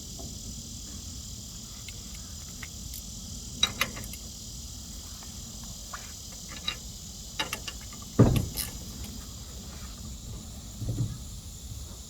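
Scattered light clicks and knocks of hand tools and small engine parts being handled, the loudest a thump about eight seconds in, over a steady high chirring of insects.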